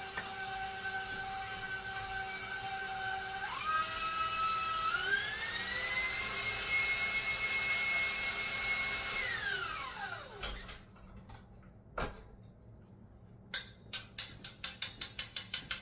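Stand mixer with its whisk attachment whipping butter: a steady motor whine that steps up in speed twice, then winds down as it is switched off about ten seconds in. Near the end, quick metallic clicks and taps come faster and faster as the whisk knocks against the steel mixing bowl.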